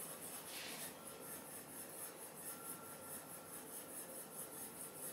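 Faint room tone: a quiet, even hiss with a faint steady high hum.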